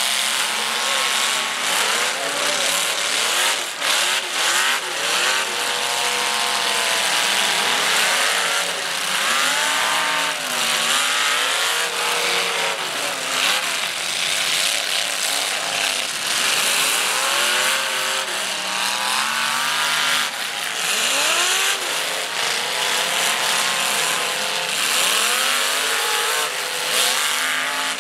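Several derby-bash race cars running hard on a dirt track, their engines revving up and down over one another, with a few sharp knocks of cars hitting.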